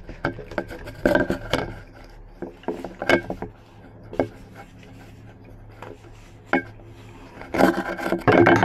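Scrapes, rubs and knocks in short separate clusters, with a louder, busier stretch starting near the end: handling noise as the camera is moved and pushed into position.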